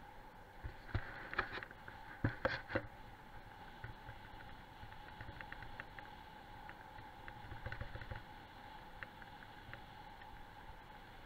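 Wheeled dryland training rig rolling over a dirt forest road behind a team of four sled dogs: a steady hum with rattling and loud knocks from bumps about one to three seconds in, and a rougher rumble around eight seconds.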